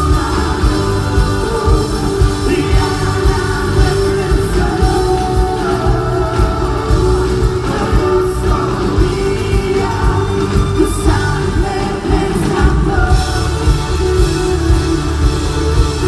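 A rock band playing a song with a singer, over a steady beat.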